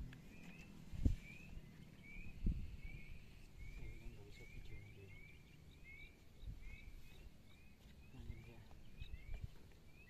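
A small animal chirping over and over, short rising notes about two a second, over a low outdoor rumble, with two dull thumps in the first three seconds.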